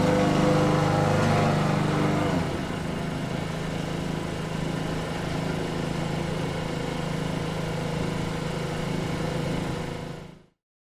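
Lawn mower engine running; a little over two seconds in it changes to a quieter note and runs steadily until the sound stops abruptly about ten seconds in.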